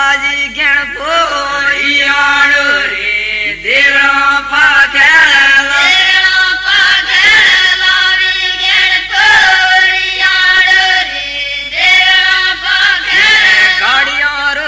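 A group of villagers singing a chant-like devotional folk song together in unison, the voices sliding between notes.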